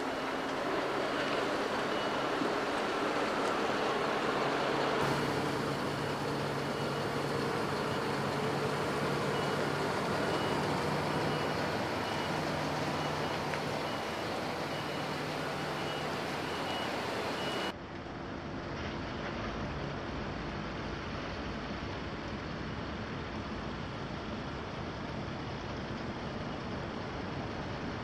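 Heavy-haul truck and multi-axle low-loader trailer rolling slowly past: diesel engine running with tyre and road noise, and a high warning beeper repeating steadily. About two-thirds of the way in, the beeping stops and the sound changes abruptly to a lower, steadier engine running.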